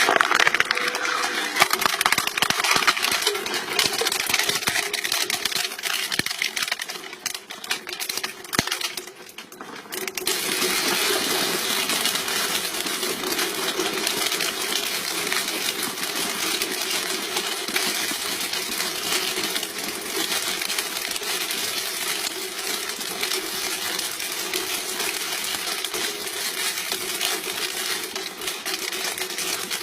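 Shredding machine crunching up material: a dense, continuous run of crackles and snaps that eases off briefly about nine seconds in, then carries on steadily.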